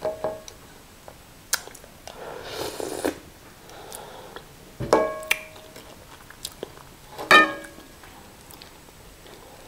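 Close-up eating sounds as konkonte with peanut soup is eaten by hand: wet chewing and lip smacks, a short slurping stretch about two seconds in, and a few sharp clicks, some with a brief ringing tone.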